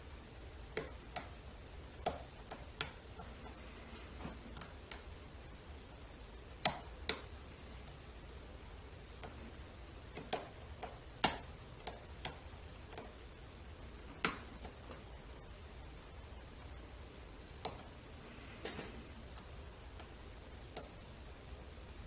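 Metal pick tool working inside the keyway of a Western Electric 30C lock, making sharp metallic clicks at uneven intervals, roughly one a second, some much louder than others, with a pause of a few seconds about two-thirds of the way through.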